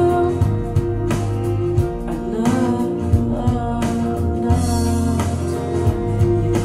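Recorded music playing: a song with guitar, a steady beat and a singing voice.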